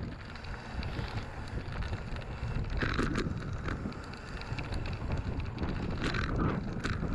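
Wind buffeting the microphone over the rumble of knobbly mountain-bike tyres rolling fast downhill on a dirt and gravel track. The bike clatters over bumps about three seconds in and again near the end.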